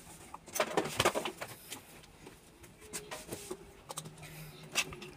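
Clicks and knocks of small tools and laptop parts being handled on a workbench, a cluster about half a second to a second in and another near the end. A few faint low cooing notes sound in the background in the second half.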